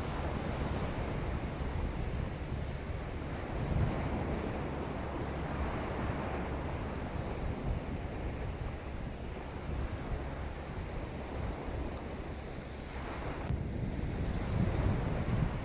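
Wind buffeting the microphone, with the steady wash of surf on a sand beach.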